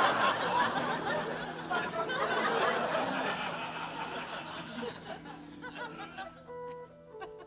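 Studio audience laughing, loudest at the start and dying away over about six seconds; music with steady held notes comes in near the end.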